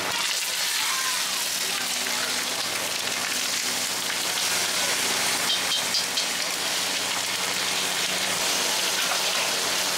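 Fish wrapped in banana leaves sizzling steadily on a hot flat iron griddle, with metal spatulas scraping and clicking on the plate a few times near the middle as the fish are turned.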